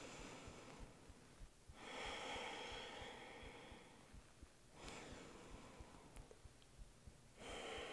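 Faint, slow breathing in and out: a woman's breaths, each lasting about one to two seconds with short pauses between, paced to a yoga inhale-exhale cue.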